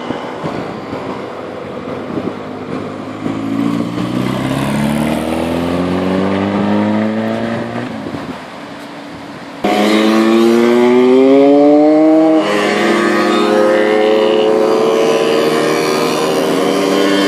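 Old mopeds and motorcycles riding past one after another, their small engines rising in pitch as they accelerate out of a bend. The sound jumps abruptly twice where shots are cut together.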